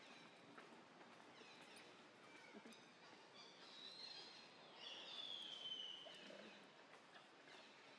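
Faint forest ambience with scattered high, thin animal calls; the loudest, about five seconds in, is a drawn-out falling whistle.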